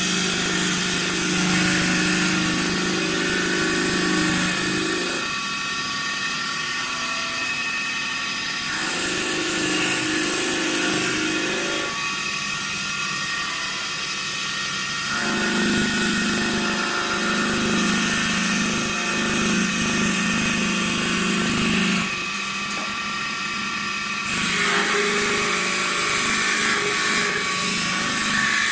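CNC wood turning lathe running, its motor humming steadily while the cutter turns wood with a rough, scraping noise. The sound shifts abruptly every few seconds, dropping in its low hum and then returning.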